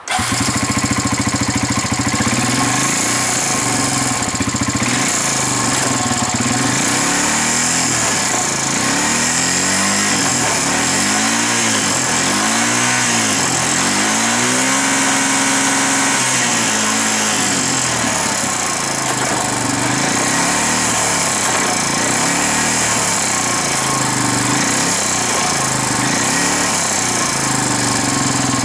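Honda Rancher ATV engine running, coming in suddenly and holding steady at idle, its speed rising and falling in a series of short swells through the middle.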